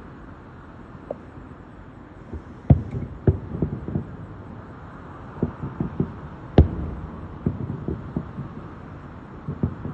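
Fireworks exploding: an irregular series of booms and smaller bangs, the loudest boom a little past halfway.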